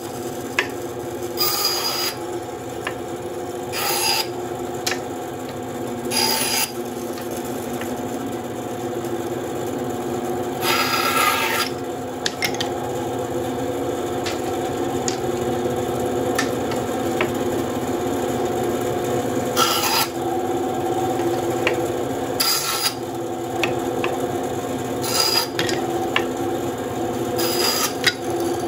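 WEN 3939 9-inch bandsaw with a 1/4-inch blade running with a steady hum, crosscutting thin wooden strips into short pieces. A brief rasp comes each time the blade goes through a strip, eight cuts a few seconds apart, the longest about 11 seconds in.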